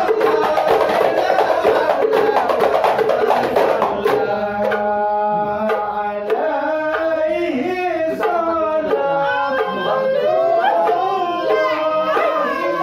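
Hadrah Ishari ensemble playing hand-struck frame drums under group singing of sholawat. For the first few seconds the drumming is dense and fast. About four seconds in it thins out and the voices come forward, with only scattered drum strokes.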